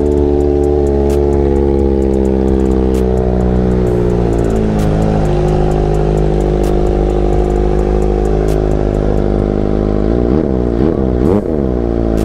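Kawasaki ZX-25R's 249 cc inline-four idling through an aftermarket AR full-system exhaust, the idle easing slightly lower in the first few seconds. Near the end the throttle is blipped two or three times, each rev rising and falling quickly.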